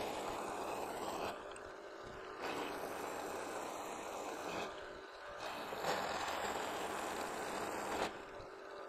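Precision Matthews PM-727 mill's roughing end mill cutting into 2-inch round stock at about 100 thousandths deep: a gritty cutting noise over the steady hum of the spindle. The cut swells and drops back three times, each louder stretch lasting about two seconds.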